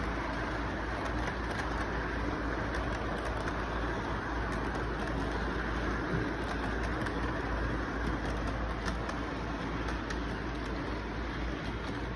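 A model freight train's boxcars rolling past on the layout track, heard through a loud, steady background noise with a low hum.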